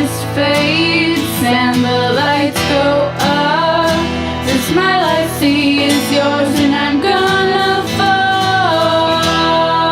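Pop rock song: a sung melody over guitar and a steady drum beat.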